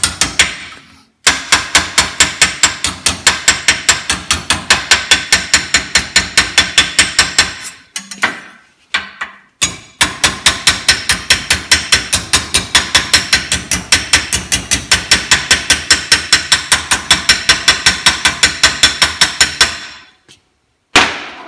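Hammer striking a sheet-metal fuel-door plate held on an antique shoe cobbler's last used as a dolly, shaping the plate down to a curve. The blows come evenly at about four a second in two long runs, with a short break about eight seconds in, and stop about twenty seconds in.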